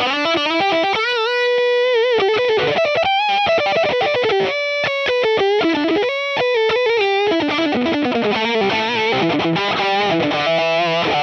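Electric guitar playing a lead solo through a Line 6 Pod Go, on its Mandarin 80 amp model (an Orange-style amp) with the Scream 808 Tube Screamer model in front, giving a fat, overdriven classic British rock tone. Single notes are held with wavering vibrato and bends, between quicker runs.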